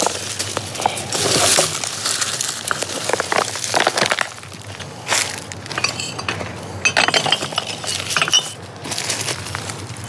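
Empty glass bottles clinking and knocking against one another as they are loaded into a cart already full of bottles, in scattered, irregular clinks.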